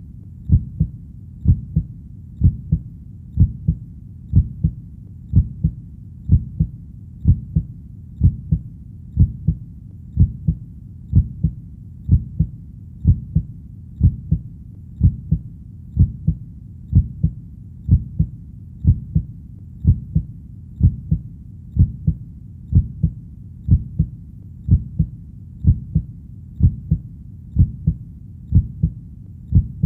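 Heartbeat: a slow, even lub-dub double thump repeating about once a second, low and dull over a faint steady low background.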